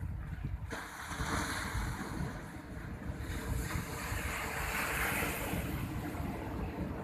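Sea surf breaking and washing up the beach, its hiss coming in about a second in and swelling through the rest, with wind rumbling on the microphone.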